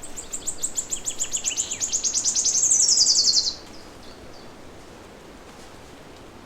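A songbird singing a long, fast trill of high repeated notes that grows louder and drops in pitch near the end, stopping abruptly about three and a half seconds in; a few faint chirps follow over quiet outdoor background.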